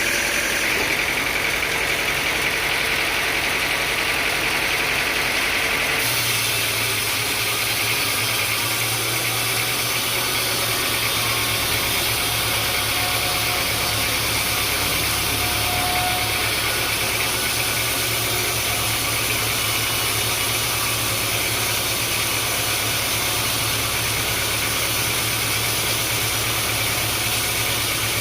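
Sawmill machinery running steadily with a continuous engine hum, its sound changing abruptly about six seconds in.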